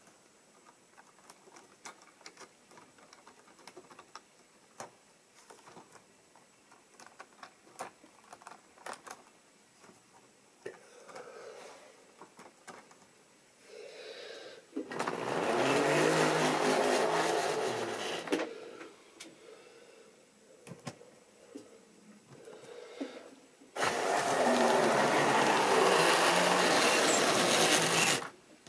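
A model railway train running on the track: its small electric motor whines and its wheels rattle along the rails. It is loud twice, about halfway through and again near the end, after a stretch of faint clicks and taps from the rolling stock being handled.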